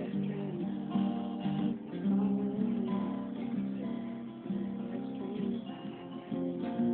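Acoustic guitar music, strummed chords with a melody that slides up and down between notes.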